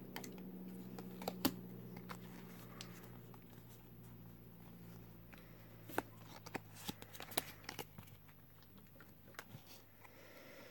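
Faint slides and light clicks of a stack of Pokémon trading cards being handled and flicked through by hand, over a low steady hum.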